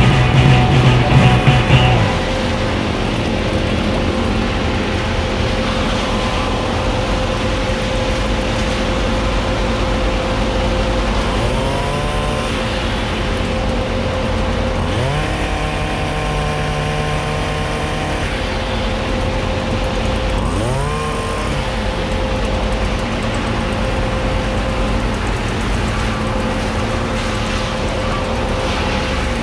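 An engine running steadily, revving up several times, once held high for a few seconds.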